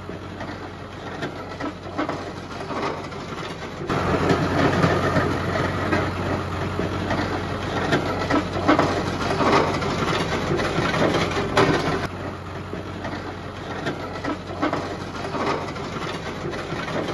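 Tractor engine running steadily under a dense, irregular rattling and scraping from a towed road leveller dragging over a gravel road, louder through the middle stretch.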